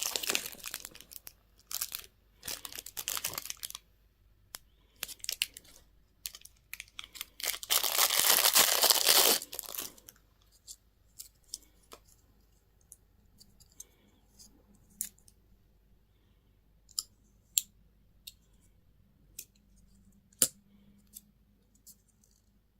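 Candy packaging torn and crinkled open by hand in dense bursts for about the first ten seconds, followed by scattered light clicks and taps.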